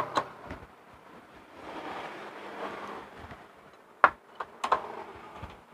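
Metal clinks of a long socket wrench working the bolts of a Honda Vario 125 scooter's CVT cover. A few sharp clinks come at the start, then a softer, noisier stretch, then a cluster of sharp clinks about four seconds in.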